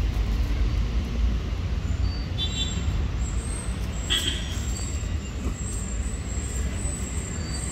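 Steady low rumble of road traffic, with two brief high squeaks, about two and a half and four seconds in.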